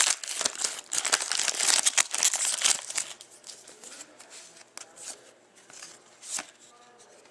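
Foil wrapper of a Panini Titanium hockey card pack crinkling and tearing as it is opened, loudest in the first three seconds. After that come fainter, scattered slides and ticks of the cards being handled.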